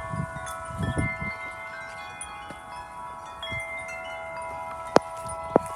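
Several tuned wind chimes ringing in the wind, their tones overlapping and sustaining, with low rumbles of wind on the microphone. Two sharp clicks near the end, about half a second apart, are the loudest sounds.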